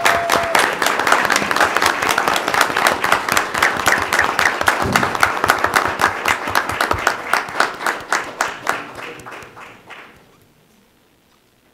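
Applause from a small audience in a meeting room, dense clapping that thins out and dies away about ten seconds in.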